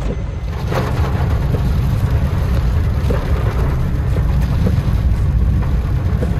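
Inside a moving car's cabin: a steady low rumble of tyres and engine on a wet road, with heavy rain on the car.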